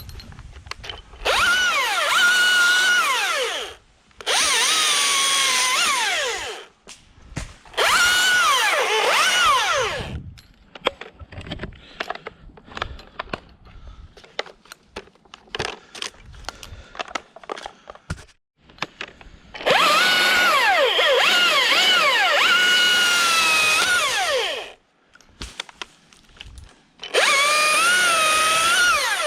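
Husqvarna T540iXP battery chainsaw running in five bursts of a few seconds each, its electric whine sagging in pitch and recovering as the chain cuts through pine limbs. Between the bursts come scattered light clicks and knocks.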